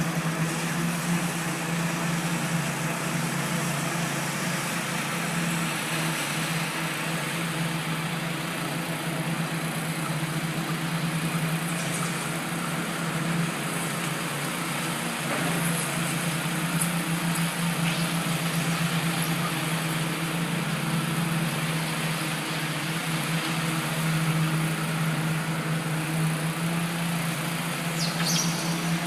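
Construction machinery engine running steadily: a constant low drone, with a few faint high clicks on top.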